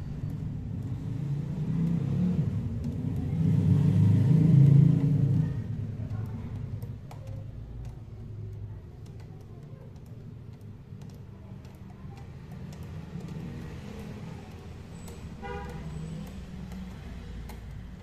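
Road traffic: a passing vehicle's engine rumble swells and fades about four to five seconds in, then a lower steady traffic rumble, with a short horn toot near the end.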